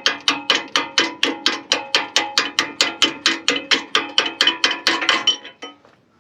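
Hammer striking a steel bulldozer C-frame pin, driving it into its bushing: rapid, even metal-on-metal blows about five a second, each with a short ring, stopping about five and a half seconds in.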